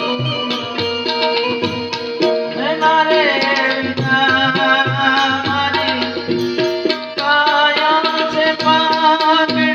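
Devotional folk bhajan music: an Indian banjo (bulbul tarang) plays a melodic interlude between the sung lines, over steady tabla strokes.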